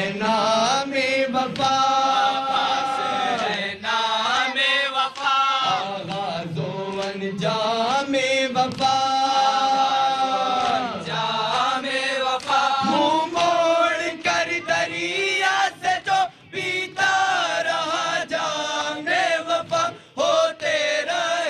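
A noha, a Shia lament, chanted by a group of young men, with a lead voice amplified through microphones and the others singing along, without instruments. The melody moves in phrases with long held notes.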